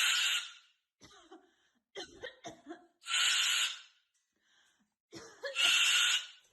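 A bird giving three harsh, cough-like calls, each under a second long and spaced a few seconds apart, with soft clicks and chatter in between.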